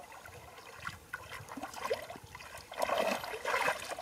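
Shallow muddy water splashing and sloshing as hands grope through it, in irregular bursts that grow louder about three seconds in.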